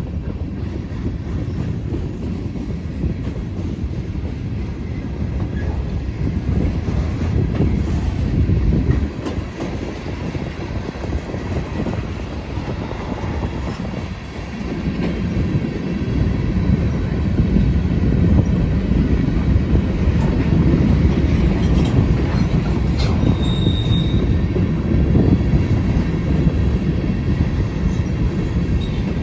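Norfolk Southern manifest freight train rolling slowly past onto a siding: steady rumble of the freight cars with wheels clicking over the rails, louder from about halfway, and a brief high wheel squeal near the end.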